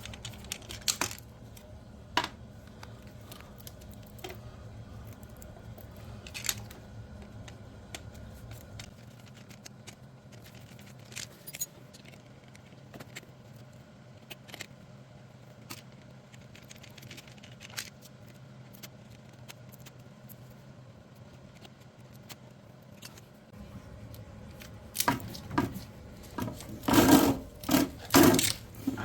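Scattered small metal clicks and scrapes of tools and hands working on a pool pump motor's wiring connections and conduit fitting, with a run of louder clanks near the end.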